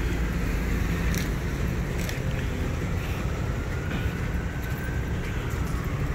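Road traffic noise with a steady low rumble, and a faint thin tone that drifts slightly up and back down through the middle.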